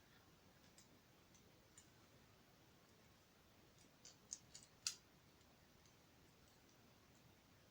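Plastic LEGO pieces being handled and clicked together: a few faint scattered clicks, then a quick cluster of sharper clicks about four to five seconds in.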